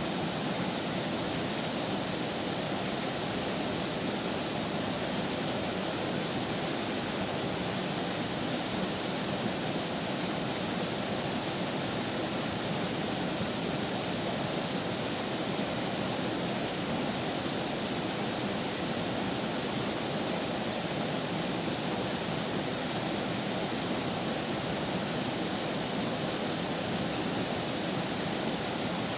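River water flowing, a steady unbroken rush with no splashes or changes.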